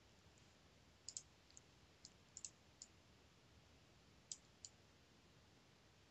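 Faint, scattered clicking of a computer mouse: about nine short clicks, some in quick pairs, stopping before the end.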